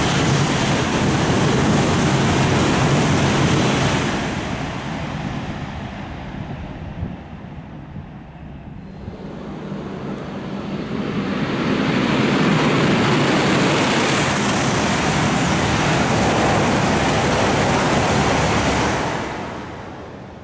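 Tohoku Shinkansen E5/E6 coupled train passing through a station at over 300 km/h, a steady rushing roar of wind and wheel noise. The first pass fades about four seconds in. A second pass swells from about ten seconds in, holds, and drops away sharply near the end.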